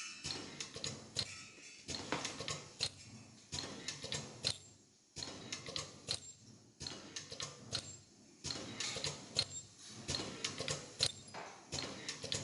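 Automatic nylon zipper half-teeth ultrasonic welding machine running its production cycle: bursts of rapid clicking and clattering that repeat about every second and a half to two seconds, with a short quieter gap between cycles.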